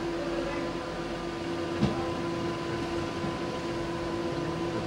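Steady mechanical hum with a few constant tones, broken by one short click a little under two seconds in.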